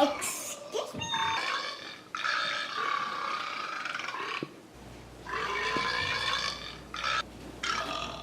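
Recorded belches played through an iPhone's speaker by a burp app, set off by shaking the phone: several long belches in a row, each lasting a second or two.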